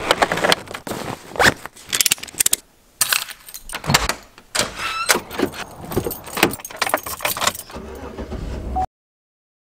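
A quick run of clicks, clacks and rattles: snowboards being clamped into a car roof rack, keys jangling and a door deadbolt being turned. Near the end a low rumble from the car comes in for about a second, then the sound cuts off suddenly.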